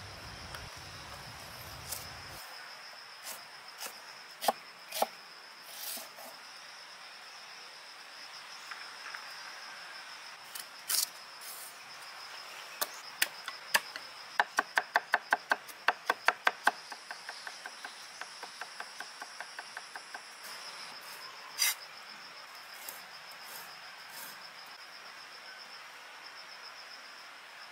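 A cleaver chopping on a wooden cutting board: scattered single strokes, then a quick even run of about a dozen chops, about five a second, midway through, followed by lighter chopping. Insects buzz steadily in the background throughout.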